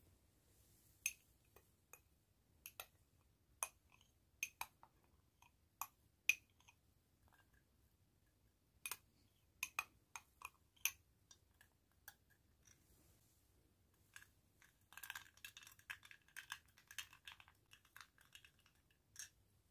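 Faint clinks of a small metal spoon against a glass coffee cup: scattered single clinks and taps, then a quick run of clinks about fifteen seconds in as the coffee is stirred.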